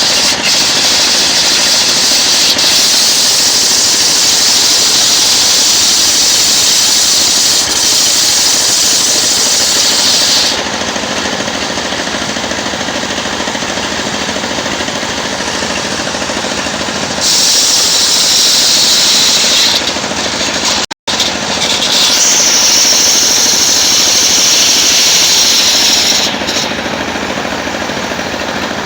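Engine-driven circular sawmill ripping coconut wood lengthwise. A loud, high-pitched cutting noise comes and goes in long stretches over the steady running of the machine. The sound cuts out for a moment about two-thirds of the way through.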